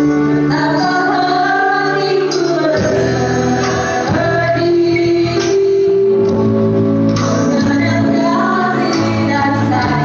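A choir singing held, wavering notes over keyboard accompaniment, with light percussion.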